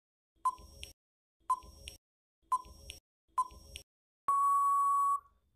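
Quiz countdown-timer sound effect: four double ticks about a second apart, each with a short ping, then a steady beep lasting about a second that marks time running out.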